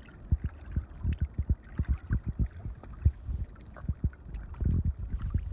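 Irregular low thumps and rumble on the camera microphone, several a second, thickening briefly near the end.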